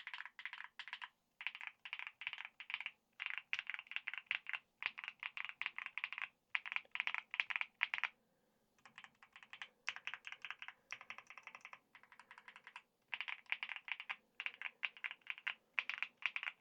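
Typing on a mechanical keyboard with ShuangCi advanced tactile switches in a PC plate: quick runs of keystroke clicks in bursts with short pauses, the longest gap about eight seconds in.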